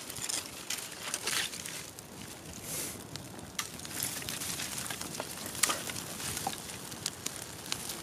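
Dry twigs of a small campfire crackling and popping with many short sharp snaps as the fire catches. There are a few brief rustling rushes in the first three seconds.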